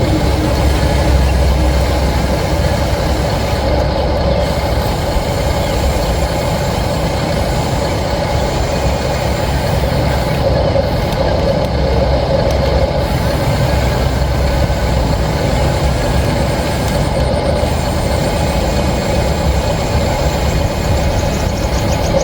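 Radio-controlled scale construction vehicle running, a loud, steady engine-like drone.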